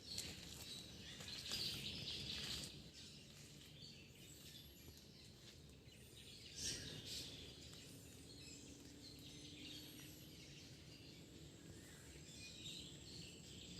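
Faint outdoor ambience on a wooded hill trail, with soft bird calls now and then.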